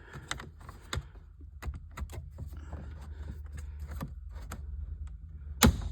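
Plastic clicks and rattles of a dash trim bezel being pried against its retaining clips, the clips stiff in the cold, with one sharp snap near the end as a clip lets go.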